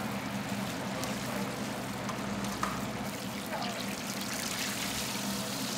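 A large battered piece of food sizzling and bubbling as it deep-fries in hot oil in a wok, the hiss growing louder near the end as tongs turn it, over a steady low hum. A single light tap about two and a half seconds in.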